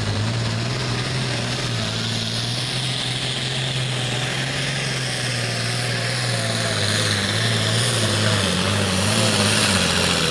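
Pro Farm pulling tractor's turbocharged diesel engine running hard under full load as it drags the weight-transfer sled: a loud, steady engine note with a hiss above it. Over the last few seconds it gets louder and the pitch wavers and sags.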